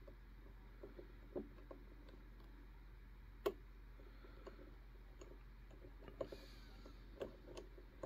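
Faint, scattered clicks from a disc detainer pick turning the discs inside an Anchor Lås disc detainer core on a Defiance Grade 4 padlock, with one sharper click about three and a half seconds in.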